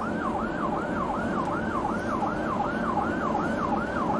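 Police car electronic siren on a fast yelp, its pitch falling quickly and repeating about three to four times a second, over steady vehicle noise.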